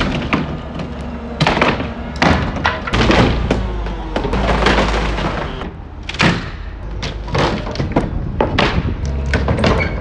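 Plywood shipping crate being knocked apart by hand: repeated thumps and bangs as panels are kicked and pried loose, with boards cracking and clattering.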